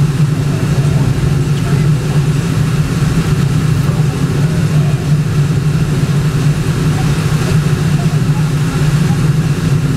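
Steady low drone of a car's engine and tyres on a paved road, heard from inside the cabin while driving at an even speed.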